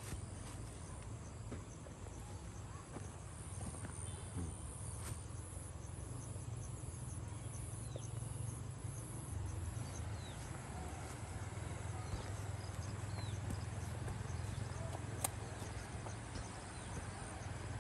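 Insects chirping in hillside vegetation, a high pulsing buzz strongest for several seconds in the first half, with a few short bird chirps. Footsteps on a dirt path and a low steady rumble run under it.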